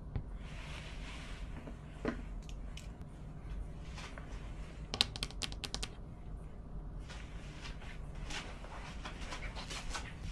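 Close handling sounds of small objects: soft rustling with scattered light clicks and taps. About halfway through comes a quick run of half a dozen sharp clicks, then more rustling and shuffling near the end.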